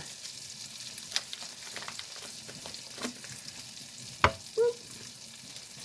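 Tomato, jalapeño and garlic mixture sizzling in butter in a cast iron pan, with a few light clicks and one sharp clack a little over four seconds in.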